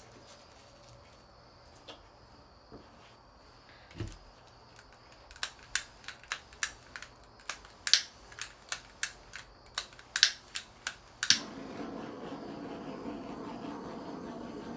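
Handheld butane torch: its igniter clicks more than a dozen times in quick succession before the torch lights, then the flame burns with a steady hiss. A few faint knocks come first, before the clicking.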